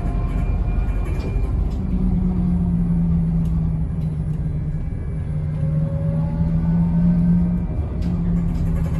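Wrightbus New Routemaster diesel-electric hybrid bus heard from inside while moving: a continuous low rumble with a steady low hum that comes and goes in stretches of a couple of seconds.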